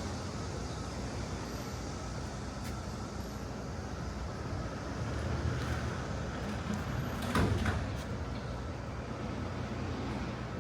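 Steady city ambience: the low rumble of road traffic. A short, louder sound, such as a clatter or scrape, comes about seven and a half seconds in.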